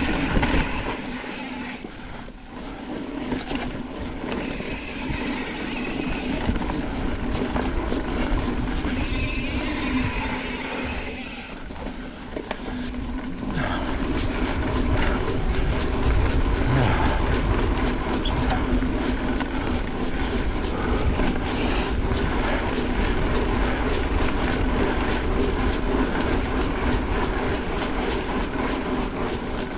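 Mountain bike being ridden over a dirt trail: knobby tyres rolling, with the bike rattling and clicking over bumps and wind rushing on the microphone. About halfway through the rolling noise and wind rumble grow louder and steadier, with a low hum.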